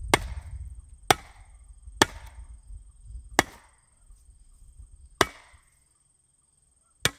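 Sledgehammer blows driving a post spike anchor into the ground: six sharp strikes, roughly one a second, with a longer pause before the last.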